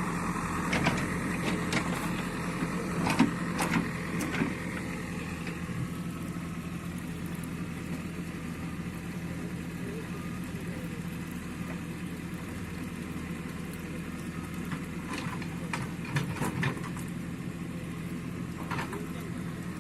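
An engine running steadily at idle, a low even hum, with scattered knocks and clicks of work over it, a few in the first seconds and another cluster about three-quarters of the way through.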